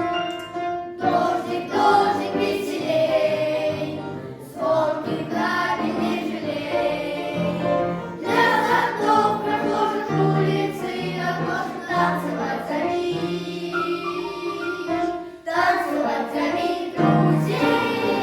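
Boys' vocal ensemble singing in chorus over a musical accompaniment, in phrases broken by brief pauses.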